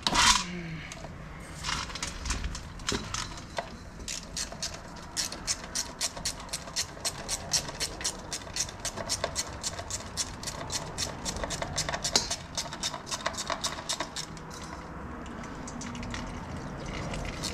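Ratchet wrench clicking in a fast, even run, about five or six clicks a second for some ten seconds, as a bolt on the automatic transmission's pan or filter is backed out. A sharp knock comes right at the start.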